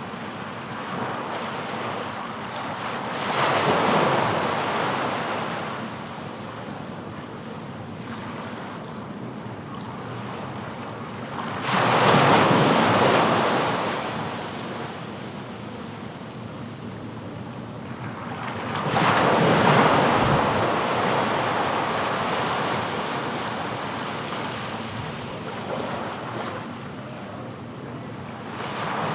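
Sea waves breaking on the shore: three waves about eight seconds apart, each building to a crash and then washing back out.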